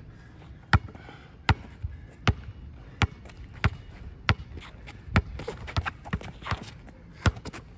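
A basketball being dribbled on an asphalt court: about a dozen bounces, each a sharp slap, coming a little faster after the middle.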